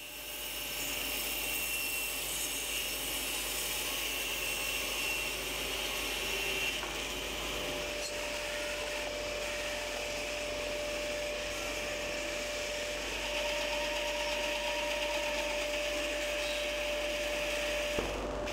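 Self-built bandsaw running and sawing lengthwise through a small log, a steady noise of motor, blade and cutting. A steady hum joins about halfway through and stops just before the end.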